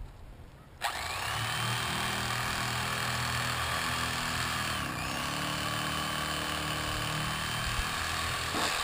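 Electric fillet knife switched on about a second in, its motor and reciprocating blades running steadily while slicing a fillet off a fish. The pitch dips once midway and recovers, and the knife cuts off suddenly near the end.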